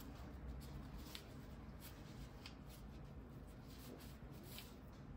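Faint rustling and a few soft, scattered ticks of hands handling a fashion doll and its outfit and accessories, over a low steady background hum.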